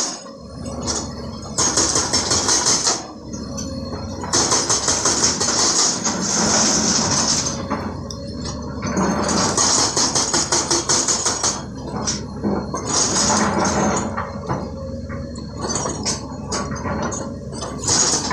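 Hydraulic rock breaker on an excavator hammering stone: a fast, even metallic clatter in spells of a few seconds that stop and start again, over the steady rumble of diesel excavator engines.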